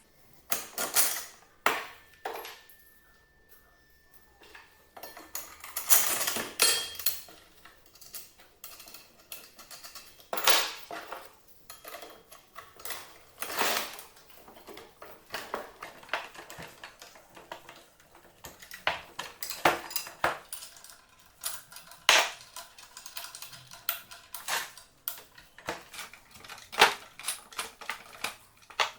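Metal parts and tools clinking and knocking irregularly as they are handled, with a quieter pause of a few seconds near the start.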